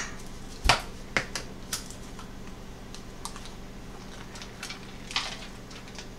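Light clicks and taps of kitchen items being handled, with one sharper knock under a second in as a plastic shaker can of grated Parmesan is set down on the counter. A soft rustle follows about five seconds in.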